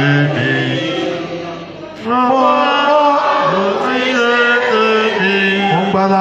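A man chanting a hymn through a handheld microphone in long, held notes that step up and down, in two phrases with a brief break about two seconds in.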